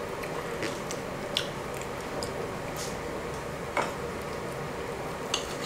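Close-miked eating sounds: chewing with scattered wet mouth clicks and smacks, and light utensil taps on the tray, over a steady low hum.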